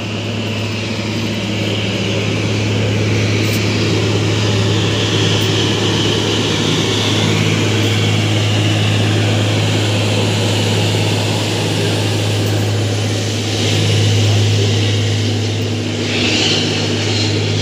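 FRM-85F ballast cleaning machine running on its diesel engines as it moves along the track close by: a loud, steady engine drone with a strong low hum, swelling a little about three-quarters of the way through.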